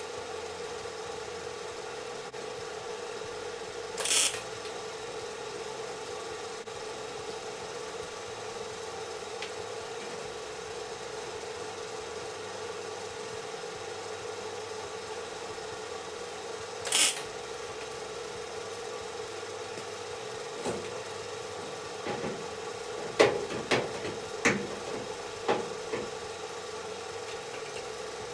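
Two short welding tacks, each about half a second of crackle, one a few seconds in and one about midway, over a steady electrical hum. Near the end come a cluster of sharp clicks and knocks.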